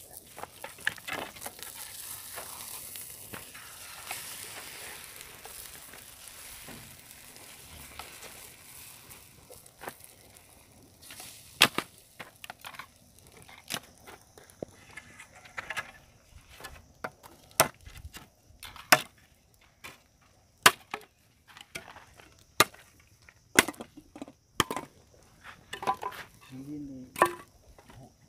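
A spoon clinking and scraping against a metal skillet as an egg mixture is beaten in it, beside a crackling campfire. A soft hiss in the first several seconds gives way to a string of sharp, irregular clicks and knocks.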